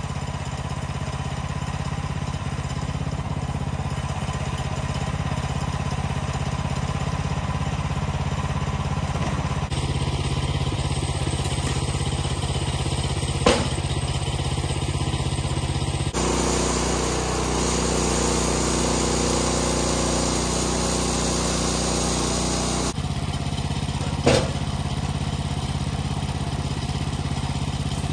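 Woodland Mills HM126 portable bandsaw mill's gas engine running steadily, its sound shifting abruptly a few times, with two sharp knocks, one near the middle and one later.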